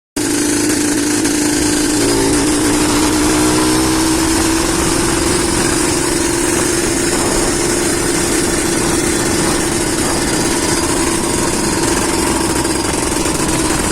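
Suzuki TS 125's single-cylinder two-stroke engine running steadily through its exhaust, with a brief wobble in revs about two seconds in.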